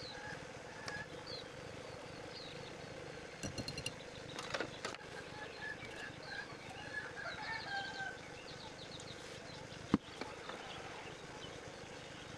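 Birds calling in the background: short chirps and a few quick stuttering trills, along with chicken-like clucks, over a faint steady hum. There are a few light knocks, and one sharp knock about ten seconds in.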